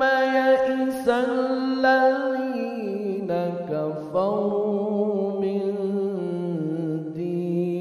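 A man's solo voice reciting the Quran in the melodic mujawwad style, drawing out one long melismatic phrase with vibrato. The held note drops in pitch about three seconds in, and a new note begins about four seconds in.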